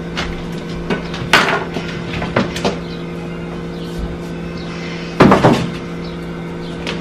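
Knife and plastic cutting board knocking a few times as peeled yam is cut and the board handled, then a louder clatter about five seconds in as the yam pieces are tipped off the board. A steady low hum runs underneath.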